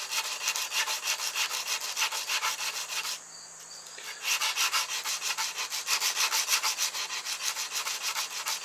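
Steel awl point, forged from rebar, scraped quickly back and forth on wet-dry sandpaper laid on a wooden board: an even rasping scratch of several strokes a second as its sides are sharpened, with a pause of about a second near the middle.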